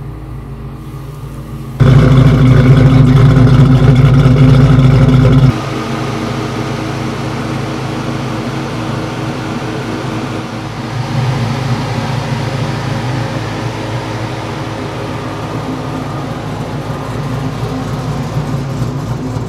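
Dodge Challenger's engine running very loud and steady; the sound starts abruptly about two seconds in and cuts off about five and a half seconds in. It is followed by the engine running more quietly and steadily, swelling slightly around the middle.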